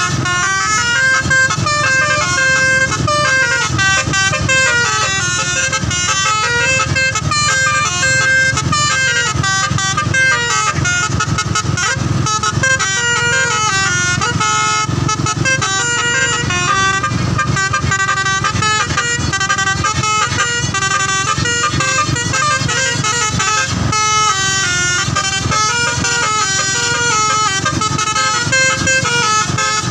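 Bus telolet horn, a multi-note musical air horn, playing a continuous melody of stepping notes, with a steady low rumble underneath.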